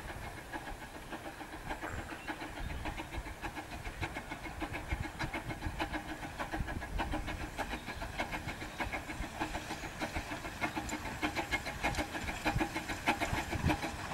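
Steam locomotive running: a quick, even chuffing from the exhaust over a steady steam hiss, the beats growing stronger about a third of the way in.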